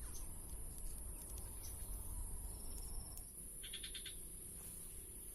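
Rural ambience: a steady high-pitched drone of insects over a low rumble, with a short, rapid run of chirps about three and a half seconds in.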